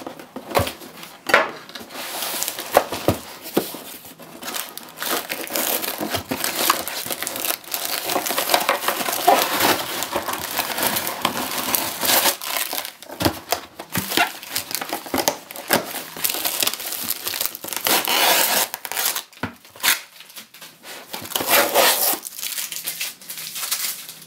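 A taped cardboard shipping box being cut and torn open: a serrated knife slicing through packing tape, tape tearing, and cardboard flaps scraping and crinkling, with scattered knocks and short pauses.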